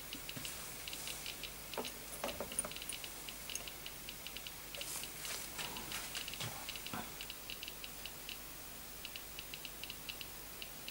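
Geiger-Müller counter with a Soviet-era STS tube clicking at a random, uneven rate, several ticks a second, as it counts radiation from a radioactive vintage watch shielded by a piece of lead sheet. A few faint soft knocks come in around two seconds in and again near the middle.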